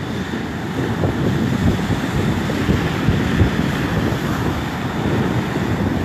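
Wind buffeting the phone's microphone in irregular gusts, over the wash of small waves breaking on the shore.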